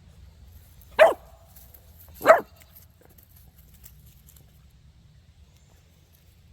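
A dog barking twice, two short sharp barks about a second and a quarter apart.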